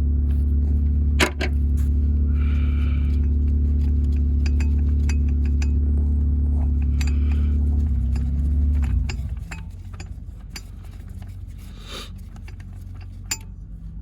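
A motor runs with a steady low hum and stops about nine seconds in. Light metallic clicks and clinks of tools follow.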